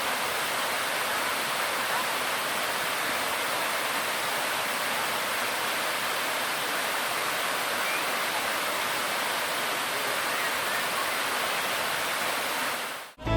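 Waterfall water rushing steadily, a dense even hiss. It cuts off suddenly near the end.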